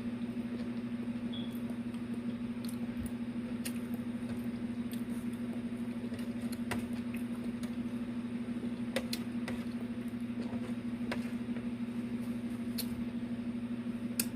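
A person chewing oxtail and rice, with scattered short wet mouth clicks and smacks, over a steady low hum.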